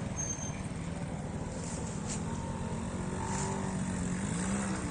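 Trials motorcycle engine running at low revs, its pitch wavering a little and rising briefly near the end.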